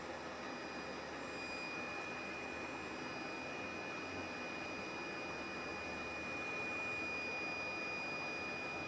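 Steady background hiss with a thin, steady high-pitched whine running through it; no distinct events.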